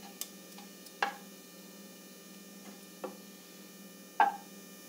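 Wooden spatula knocking against the side of a pressure cooker while cumin seeds are stirred in hot oil: a few light, spaced knocks, the loudest near the end.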